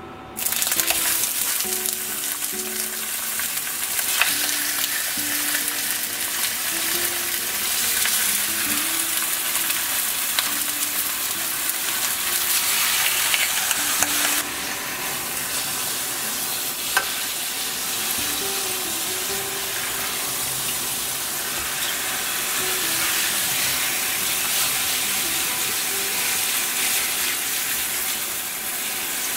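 Pork chops sizzling in hot oil in a stainless steel frying pan as they brown, the sizzle starting suddenly about half a second in when the raw chops go in and easing a little about halfway through. A few sharp clicks sound over it.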